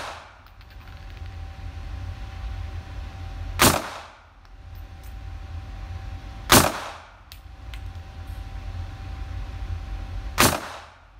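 Makarov PM pistol firing 9×18 mm rounds: three single shots a few seconds apart, each with a short echo off the indoor range.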